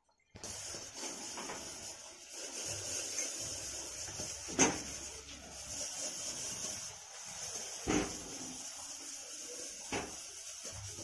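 Steady hiss in a kitchen, with three sharp knocks of utensils about three and then two seconds apart.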